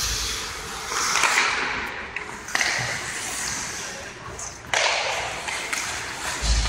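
Ice hockey skates scraping and hissing on the ice, with two sharp cracks of stick and puck, about two and a half and nearly five seconds in, that ring on in the rink.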